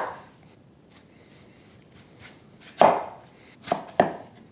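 Chef's knife chopping through honeydew melon and knocking on a wooden cutting board: three chops, one about three seconds in and two in quick succession near the end.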